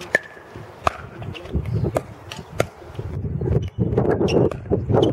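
Pickleball paddles striking a plastic ball in a rally: sharp pops, roughly one a second. A low rumbling noise builds up under them in the second half.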